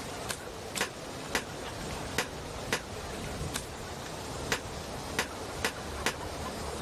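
Sharp clicks about twice a second at uneven spacing, over a steady background noise: a wrench being worked on a stuck lug nut of a car wheel.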